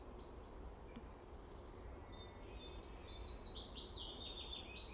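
A songbird singing: a few short high chirps, then a fast run of brief notes stepping down in pitch, over a steady low hiss of outdoor background noise.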